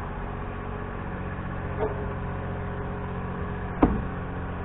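Steady low drone of an engine running in the background, even and unchanging, with a short sharp knock-like sound about four seconds in and a fainter one a little under two seconds in.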